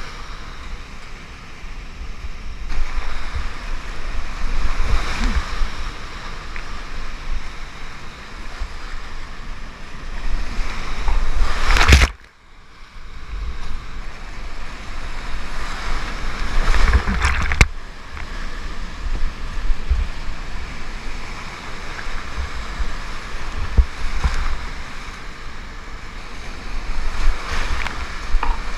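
Whitewater rapids rushing loudly around a kayak, with heavy low rumbling buffeting on the camera microphone. The roar swells in surges, loudest about twelve seconds in, then cuts off abruptly into a brief muffled lull before building again.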